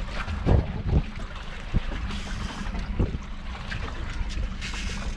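Wind buffeting the microphone and water sloshing against a small boat's hull over a low steady hum, with several short knocks.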